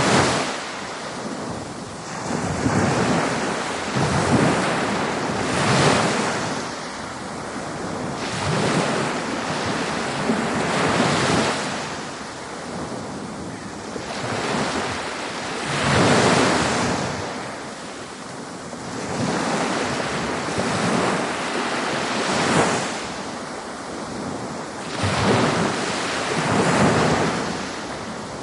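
Ocean surf breaking on a beach, swelling into a rush of water every few seconds and washing back between the waves.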